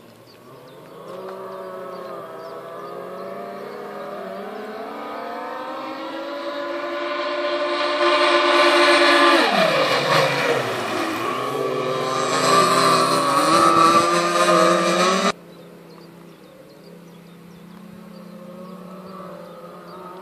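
High-revving engine of the MHZ 185 Mystic (XXtreme Engines) running at speed. Its pitch climbs, then sweeps sharply down and back up as it passes close by about ten seconds in. It revs again and drops suddenly, about fifteen seconds in, to a much quieter, lower engine note.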